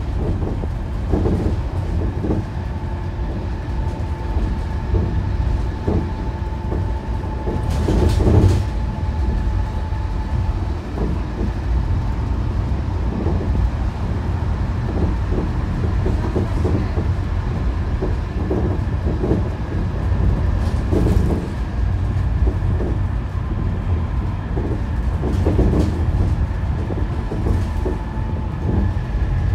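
Cabin noise of a Scania K230UB single-deck bus under way: its five-cylinder diesel and the road make a steady low rumble, with a faint high whine and frequent rattles and knocks from the body and fittings, the loudest knock about eight seconds in.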